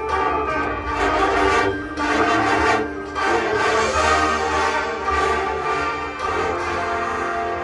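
College marching band playing a brass-led passage of held chords that swells and eases several times.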